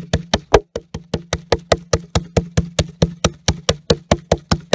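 Large kitchen knife chopping rapidly through a raw bone-in chicken leg quarter onto a wooden board: quick, even knocks about six a second, breaking the meat and bone into small pieces.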